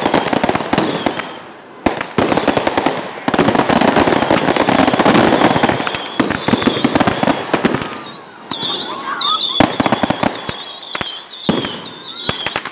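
Firecrackers going off in rapid crackling strings, with new strings catching about two and three seconds in; after about eight seconds the crackle thins to scattered sharp bangs while high wavering whistles sound.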